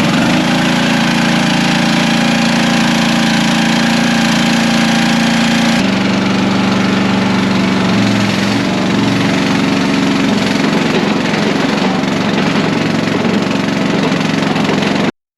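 Mini skid steer's small engine running steadily, its tone shifting about six seconds in.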